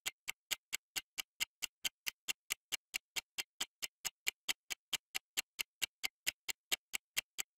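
Clock-style ticking sound effect of a quiz countdown timer, short even ticks about four a second.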